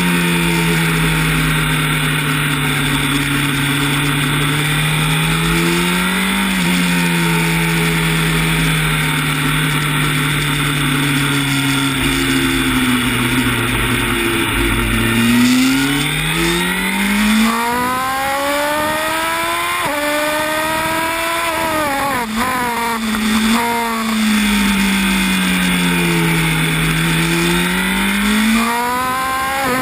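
Honda CB1000R's inline-four engine heard from on board at racing speed, with rushing wind. The engine note sags and rises through the corners, then climbs hard about halfway through, broken by several sudden drops in pitch at gear changes, and rises again near the end.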